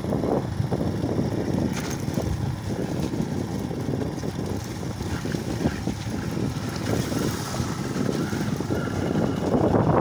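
Wind rushing over the microphone of a moving motorcycle, with its engine running underneath in a steady, rumbling noise.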